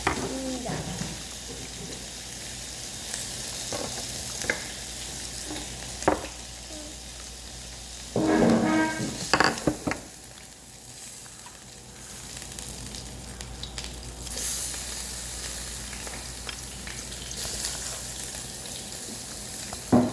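Meat sizzling steadily as it grills, with several sharp utensil clicks and a short louder voice-like sound about eight seconds in.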